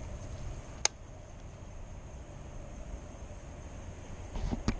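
Quiet outdoor ambience: a low steady rumble with a faint, thin high steady tone. One sharp click comes about a second in, and a few soft knocks near the end.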